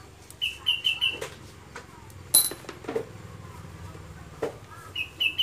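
Clinks and knocks of metal engine parts being handled while a Honda Vario 125 engine is taken apart by hand, with one sharp, ringing metallic clink about two and a half seconds in. A bird chirps in quick runs of four short high notes near the start and again near the end.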